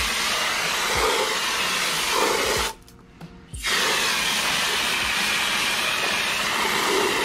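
Pistol-grip garden hose nozzle shooting a strong jet of water into the back of a car wheel, a steady hissing spray. It cuts off for about a second near the middle, then starts again.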